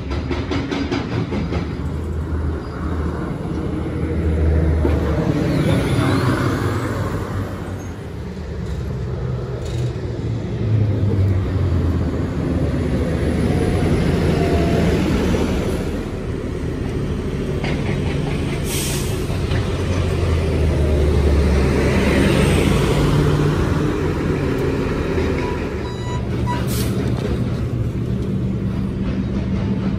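Bee-Line transit bus engine running at a stop, with a low rumble that swells twice, and two short sharp hisses of released air from the air brakes in the second half.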